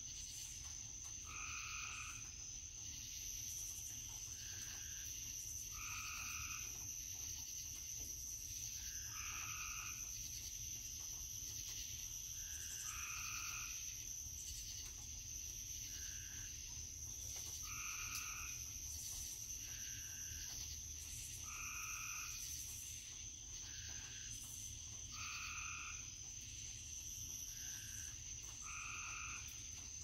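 Frogs calling: short calls repeat every few seconds, with two callers at different pitches taking turns. Underneath runs a steady high-pitched whine and a low rumble.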